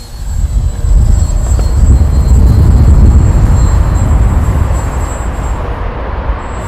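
Strong gusty wind buffeting the microphone, the loudest sound, over the thin high whine of an electric RC aerobatic plane's brushless outrunner motor and propeller in flight, which fades out about five and a half seconds in.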